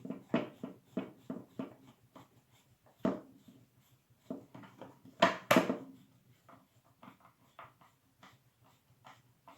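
Small clicks and knocks of a cross-head screwdriver turning the little bolts that hold a melodeon's new keyboard, with a few louder knocks, two of them close together about five and a half seconds in.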